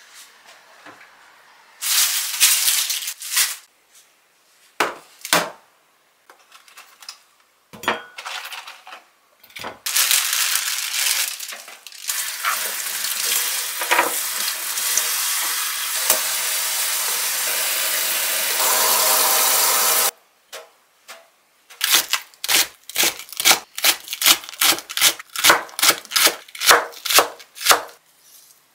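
A kitchen tap runs steadily for about ten seconds while green onions are rinsed under it, then shuts off suddenly. A chef's knife then chops green onions on a cutting board in quick, even strokes, about two or three a second. Before the water, a few brief knocks and handling noises.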